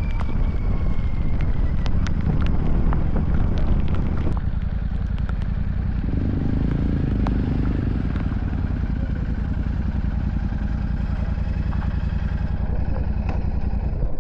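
Royal Enfield Super Meteor 650's parallel-twin engine running steadily under way, with scattered clicks and rattles.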